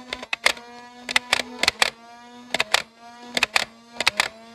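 Battery-powered toy foam-dart blaster humming as it runs, firing in five short bursts of two to four sharp snaps each.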